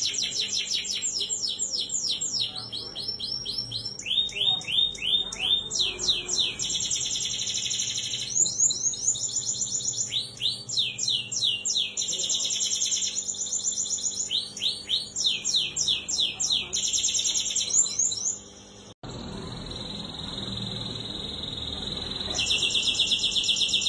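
Domestic canary singing a long, lively song of fast rolling trills and rapid repeated high notes in phrases of a second or two. The song breaks off abruptly about 19 seconds in and resumes a few seconds before the end.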